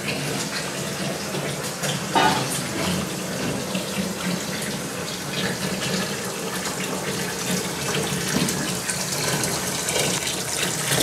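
Kitchen tap running a thin stream into a red plastic basin in a stainless steel sink, a steady splashing of water. A brief clatter about two seconds in.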